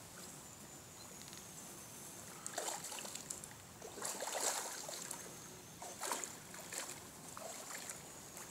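A hooked rainbow trout thrashing and splashing at the surface of a shallow river several times, starting about two and a half seconds in, over the river's steady faint running-water hiss.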